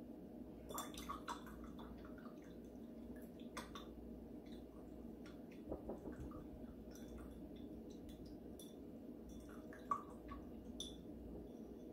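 Paintbrush being rinsed in a glass jar of water: faint swishing and dripping, with scattered small taps against the jar, the sharpest about ten seconds in.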